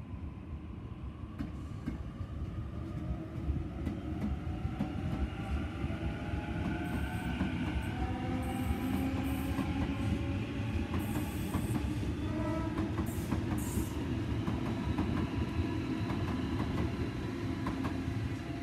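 Sydney Trains double-deck electric suburban trains (Waratah and Tangara sets) running past close by: a steady low rumble of wheels on rail with some clatter, and an electric traction whine made of several tones that glide slowly in pitch. A few short high-pitched sounds come near the middle.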